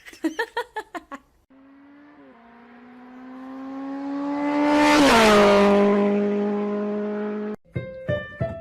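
A motor vehicle passing at speed. Its engine note swells to its loudest about five seconds in, drops sharply in pitch as it goes by, then trails off before cutting out abruptly. Short rhythmic beats come before it and piano-like notes near the end.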